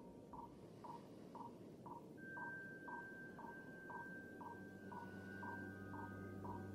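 Quiet, eerie electronic soundtrack: a soft beep pulsing about twice a second, joined about two seconds in by a steady high tone and near the end by a low drone that slowly grows.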